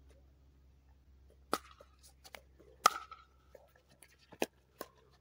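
Pickleball rally: sharp pops of paddles striking the hollow plastic ball, about a second or so apart, the loudest about three seconds in with a brief ring, with fainter pops from the far side of the net.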